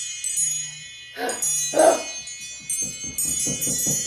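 Background music of bright, bell-like chime tones ringing and changing. A short vocal sound, like a gasp or exclamation, comes about a second in.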